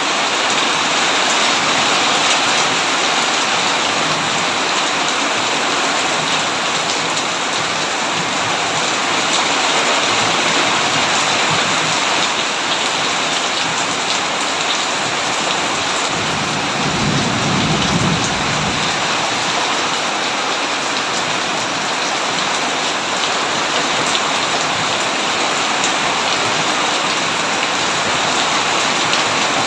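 Heavy rain falling steadily, with a low rumble of thunder lasting a couple of seconds about halfway through.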